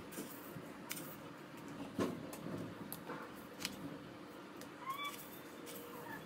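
Scattered light clicks and taps of a spoon against bowls as mustard seeds are measured out, the sharpest about two seconds in. A short rising squeak-like call sounds about five seconds in.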